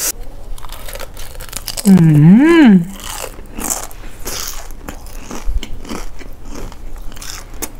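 Close-up crunching and chewing of crispy deep-fried papaya salad (som tam thod), a dense run of sharp crunches. About two seconds in, a loud hum of the voice rises and falls once.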